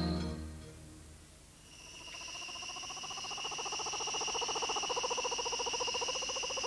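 Background music fades out in the first second. From about two seconds in, night-time forest sounds rise: steady high-pitched insect trills and a very fast, lower pulsed trill that grows louder.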